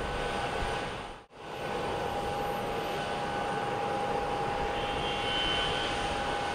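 Jet airliner engines running with a steady noise and a steady high tone over it. The sound drops out briefly about a second in, then carries on unchanged.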